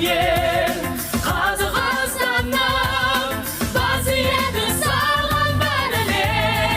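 A solo voice singing long, high held notes with vibrato over band accompaniment with a steady bass line; the notes rise and fall in phrases of about a second or two.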